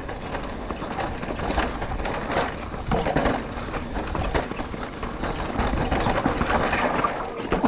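Mountain bike riding fast down a rough dirt trail: tyres rumbling over dirt and rocks and the bike rattling, with many irregular knocks as it hits rocks and roots.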